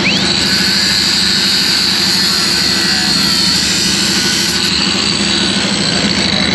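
A motor running steadily at full speed, giving a loud, constant high-pitched whine over a low hum.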